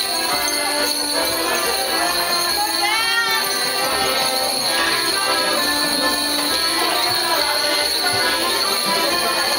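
A folk dance tune with the jingling of Morris dancers' leg bells as they step in time to it.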